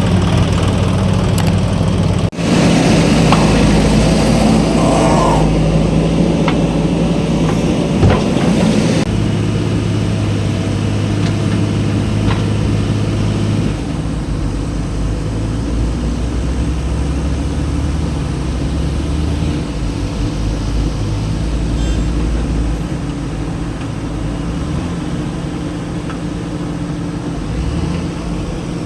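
Diesel engine of a JCB backhoe loader running under working load, its pitch and level stepping up and down as the operator works the hydraulics, louder in the first half and settling lower after about 14 seconds, with a few faint clanks.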